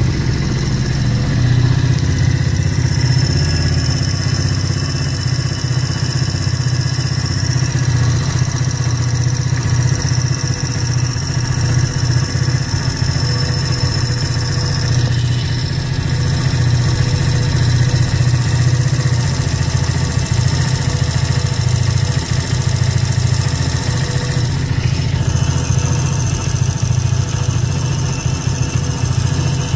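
Kayo YX140E Klassic pit bike's single-cylinder four-stroke engine running at a fairly steady speed, its level wavering slightly. This is an engine that idles cleanly but sneezes, with its revs hunting, when the throttle is held open; the owner has already opened the valve clearances without curing it.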